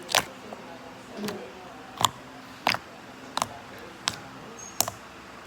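Slime being pressed and stretched in the hands, giving about six sharp popping clicks at irregular intervals as trapped air pockets burst.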